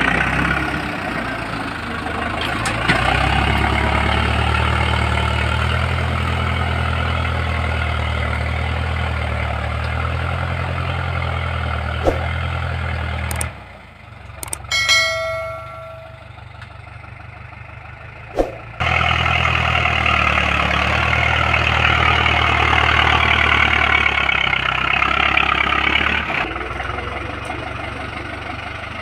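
Tractor engine running steadily under load while pulling a disc harrow through soil. Around the middle the engine sound drops out for about five seconds, and a click and a short bell-like chime play before the engine sound returns.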